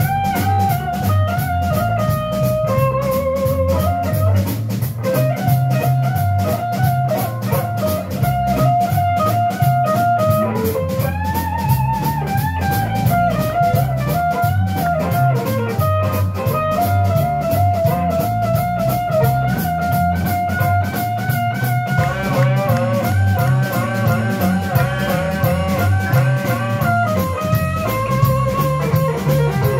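Live blues band: electric guitar playing lead lines with held and bent notes over drums and electric bass.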